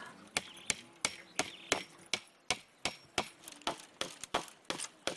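Hammering on wood: quick, uneven blows about three a second, from work on a wire-fenced livestock enclosure.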